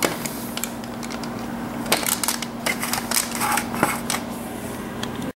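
Plastic Duplo bricks clicking and clattering as they are handled on a table, in quick irregular knocks over a steady low hum; the sound cuts off abruptly near the end.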